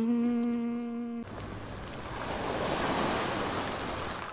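A steady buzzing drone of cartoon bees that cuts off about a second in. It is followed by the wash of sea waves, swelling and then fading.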